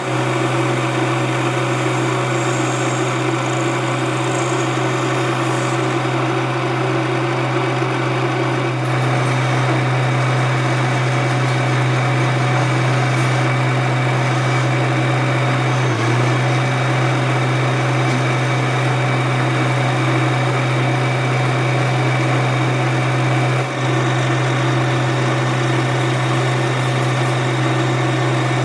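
Workshop machinery running with a steady, loud mechanical hum. The sound jumps slightly at three cuts, about 9, 16 and 24 seconds in.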